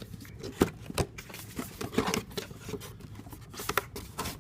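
Cardboard retail box being opened by hand: rustling and scraping of the cardboard flaps, with several sharp taps and clicks, two in quick succession near the end.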